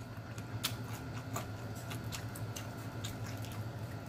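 Chewing and mouth-smacking on fried chicken, with irregular wet clicks, over a steady low hum.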